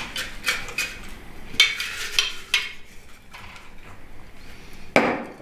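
Hand rummaging through folded paper lots in a glass jug, the slips rustling and clicking against the glass, with one louder knock about five seconds in.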